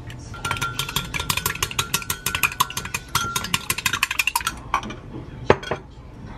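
An egg being beaten with chopsticks in a glass mug: rapid clicking of the chopsticks against the glass, about ten strokes a second, with the glass ringing, for about four seconds. It stops and is followed by a few separate taps.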